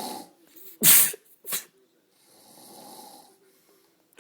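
A man snoring in deep sleep: one snore breath trails off, a loud, sharp snort about a second in is followed by a shorter one, then another snore breath follows.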